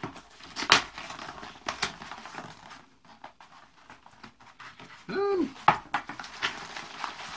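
Cardboard mailing box being torn open by hand: irregular ripping, rustling and crinkling of the card and its flaps. About five seconds in there is a short hummed vocal sound that rises and falls in pitch.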